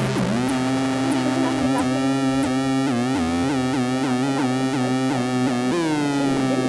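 Harsh noise / power electronics track: a loud electronic drone with dense overtones, its pitch wobbling about three times a second over a steady lower hum, sliding down briefly near the end.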